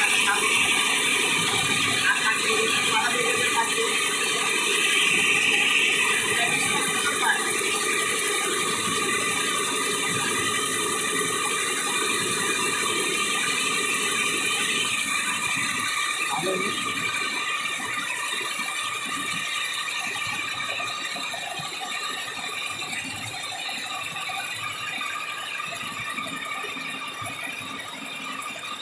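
Multi-head computerised embroidery machine running, its row of needle heads stitching together in a steady mechanical clatter.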